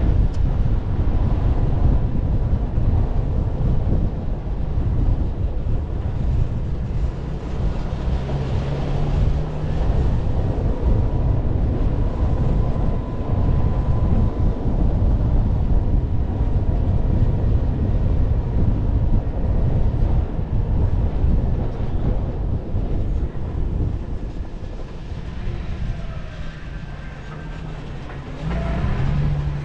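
Toyota Land Cruiser 70-series on the move: a steady low engine and road rumble. It eases off for a few seconds near the end and then picks up again.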